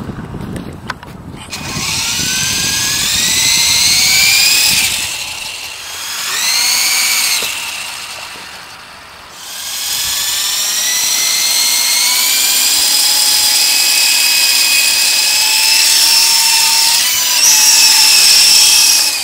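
Radio-controlled helicopter's motor and rotor whining, pitch rising as it spins up. It spools up and eases off twice in the first half, drops out briefly, then holds a steady high whine for the rest.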